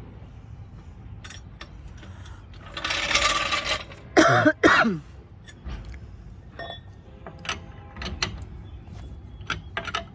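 Scattered sharp metallic clicks and clinks of a lug wrench and lug nuts being worked on a van wheel. In the middle there is about a second of hissing rush, followed by two short, loud, falling squeaks.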